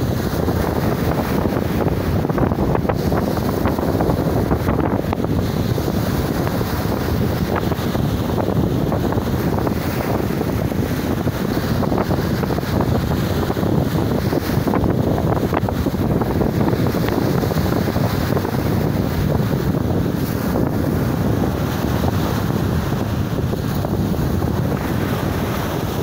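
Sea surf breaking and washing up a sandy beach, a steady rush of waves, with wind buffeting the microphone.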